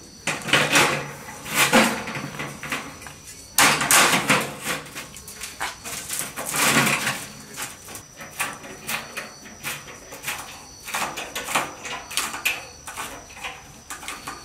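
Thin galvanized steel sheet being handled over a metal frame: the sheet flexes and rattles in three loud bursts in the first seven seconds, followed by lighter clicks and knocks of metal on metal.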